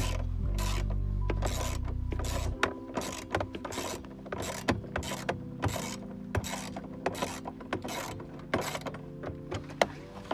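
Ratchet wrench on a long extension loosening a dashboard mount bolt, its pawl clicking in quick, irregular runs of strokes, over steady held tones.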